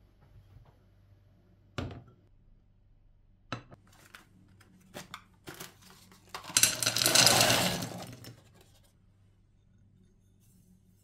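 Frozen mixed berries poured from a plastic box into a non-stick frying pan, rattling and clattering against the pan for about two seconds. Before that come a few separate knocks of cookware being set down on the glass hob.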